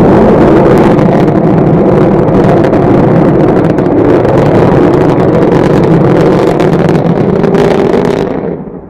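Loud, steady rocket engine roar with a crackle running through it, fading away near the end.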